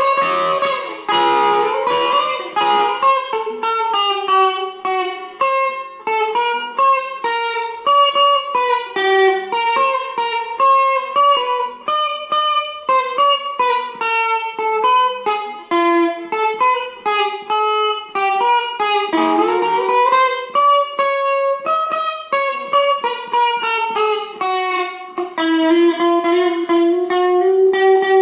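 Solo Stratocaster-style electric guitar playing a slow single-note melody, a few notes a second, with some notes bent or slid in pitch.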